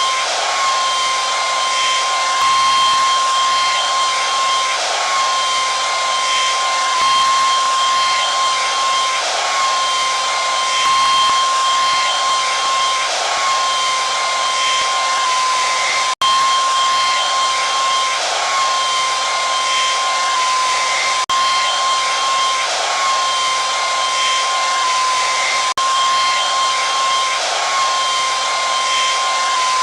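Hair dryer running steadily: a rush of blown air with a steady high whine from the motor. It cuts out for an instant about halfway through.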